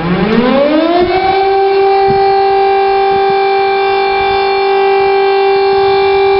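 Air raid siren winding up, its pitch rising steeply over about the first second, then holding one loud steady tone.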